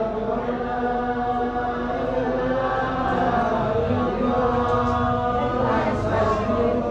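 Chanting voices holding long notes that glide slowly up and down.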